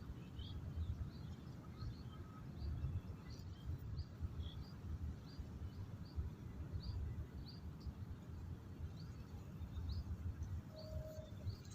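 Small birds chirping, short high chirps about two a second, over a steady low rumble.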